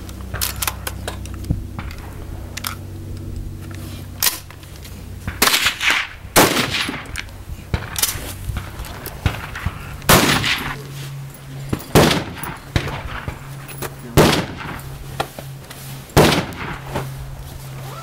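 Rifle shots on a highpower rifle firing line: several sharp, loud reports at uneven spacing, about one every two seconds in the second half. A steady low hum runs underneath.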